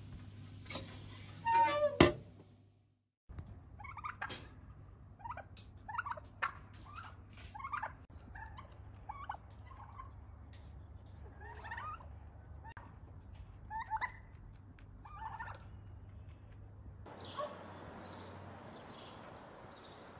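A turkey calling in a long run of short gobbling calls, a dozen or more spread about a second apart. Before it come a couple of sharp clatters, and near the end small birds chirp over a steady outdoor hiss.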